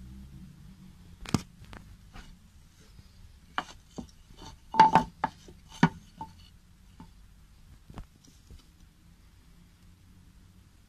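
Handling noises: a string of sharp knocks and clicks as a pine board and thin sheet-metal target plates are moved and set down on a hard floor. The loudest come in a quick cluster about five seconds in, one with a short metallic ring.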